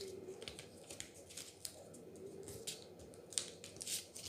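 A sheet of A4 paper being folded and creased by hand, giving faint rustling and crinkling in short, irregular bursts, a little louder near the end.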